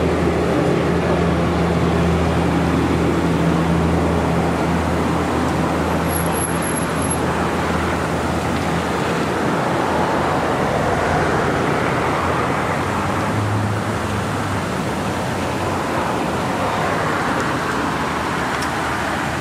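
Steady road traffic noise with an engine idling, its low hum fading out about eight seconds in.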